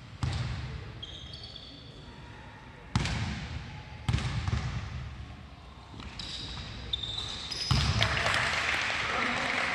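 Basketball game play on a hard court: the ball thuds on the floor a few times, sharp and separate, and sneakers squeak briefly twice. A louder rushing noise builds about eight seconds in.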